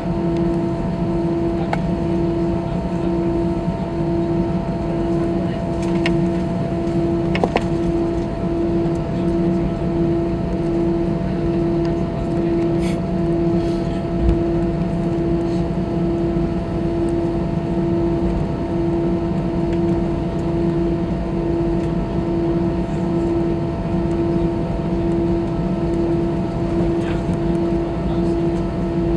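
Airbus A320's jet engines at taxi power, heard inside the cabin: a steady hum with a tone that pulses evenly about once a second. A few small cabin clicks and rattles come through.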